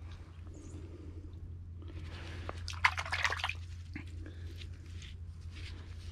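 Muddy water splashing and dripping as a gloved hand swishes a small plastic emblem in it, with a short run of splashes about halfway through. A steady low hum runs underneath.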